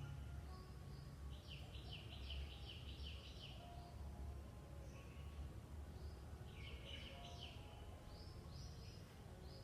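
Birds singing: quick runs of falling chirps, one lasting about two seconds, a shorter one near the middle and another starting near the end, with fainter single notes between, over a steady low rumble of outdoor background noise.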